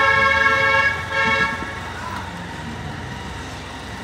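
A vehicle horn held in one long steady honk. It drops about a second in and stops soon after, leaving a low hum of street traffic.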